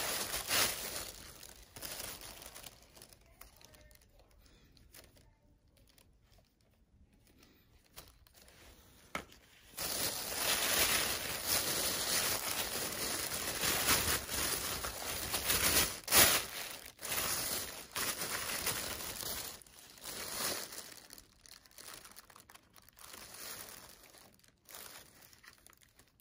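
Thin plastic shopping bag crinkling and rustling as hands dig through it. A short burst at the start, a quieter stretch, then long loud rustling from about ten seconds in, breaking into scattered crinkles near the end.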